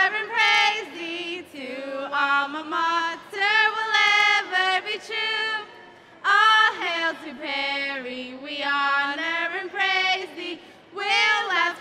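Female voices singing the closing phrases of a school alma mater, with long held notes that waver in pitch and short breaks between phrases.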